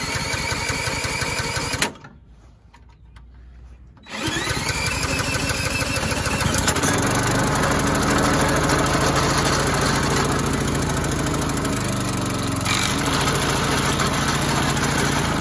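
Small Harbor Freight gas engine being cranked with a cordless drill. A first burst of cranking stops after about two seconds. A second try spins up with a rising whine, and the engine catches about six seconds in and runs steadily.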